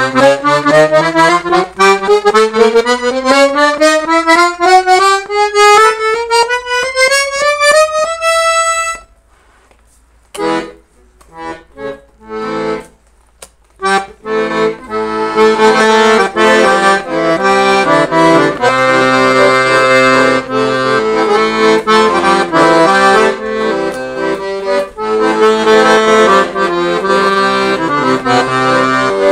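Weltmeister Amigo piano accordion being played. A scale rises step by step and ends on a held note about eight seconds in. After a short pause come a few short separate low notes and chords, then from about halfway a tune with bass and chord accompaniment.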